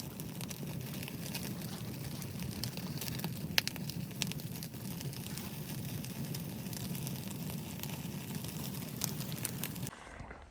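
Wood fire crackling with scattered sharp pops over a steady low rushing; it cuts off abruptly near the end.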